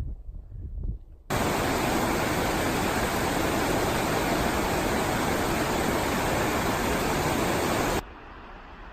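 The Pigeon River's High Falls, heard close as a loud, steady rush of falling water. It cuts in about a second in and cuts off abruptly near the end, leaving a fainter steady hiss.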